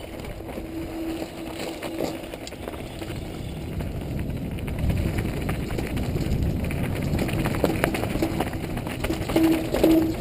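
Mountain bike riding fast down a dirt singletrack: tyres rolling over dirt and roots, with the chain and frame rattling and wind buffeting the helmet-mounted microphone. It gets louder toward the end as speed builds.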